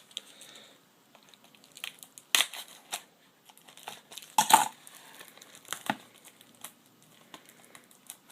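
Plastic shrink-wrap crinkling and tearing as it is peeled off a Blu-ray case, in irregular crackles with the loudest rips about two and a half and four and a half seconds in.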